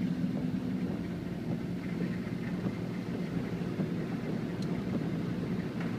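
Car driving along a flooded road: a steady low engine hum under an even hiss of tyres running through water.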